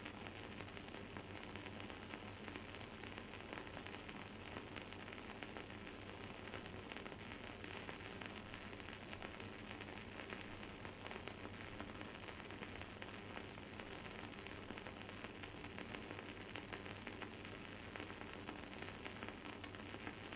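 Wood-wick candle burning, its wooden wick giving off a dense, steady fine crackling and sizzling with no pause. A faint steady hum sits beneath it.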